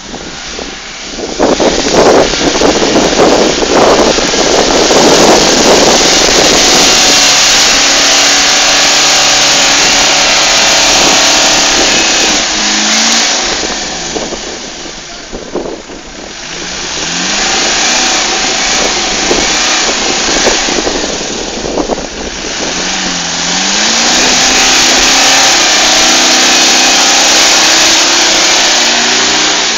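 4x4 off-road vehicle's engine revving hard, rising and falling again and again, as it churns through deep mud. It eases off briefly about halfway through and then revs up again.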